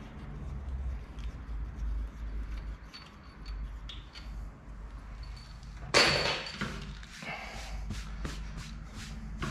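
Metal tools and parts being handled on a bare engine block: a sharp metallic clank about six seconds in, then a run of smaller clicks and knocks, over a low steady hum.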